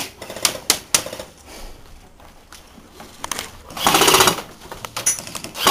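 Airsoft gunfire: a few sharp single cracks in the first second, then a rapid full-auto rattle about four seconds in and another burst near the end.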